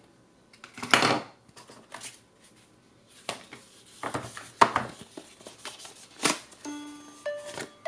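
Paperboard inserts and packaging of a phone box being handled: a series of short scrapes and taps. Near the end, a few electronic tones begin as the LG V10 boots up.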